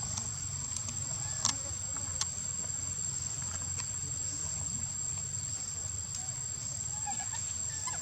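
Insects droning in one steady, unbroken high-pitched whine over a low background rumble, with a couple of sharp clicks about one and a half and two seconds in.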